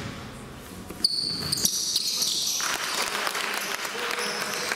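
Basketball game sounds on a court: a ball bouncing and sneakers squeaking on the floor, getting busier from about a second in, with voices in the hall.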